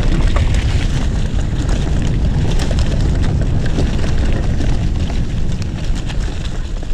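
Mountain bike moving at speed along the trail: wind rumbling on the microphone, with many small crackles and ticks from the tyres over leaf-covered ground.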